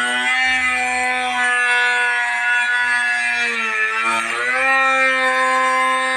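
Power woodworking machine with a high-speed cutter, such as a router or spindle moulder, running with a steady loud whine. About four seconds in, its pitch sags briefly and then recovers, as a motor does when the cutter takes load in the wood.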